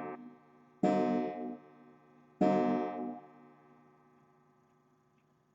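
Strummed acoustic guitar chords. The end of one chord is still sounding, then two more chords are struck about a second and a half apart, and the last rings out and fades away.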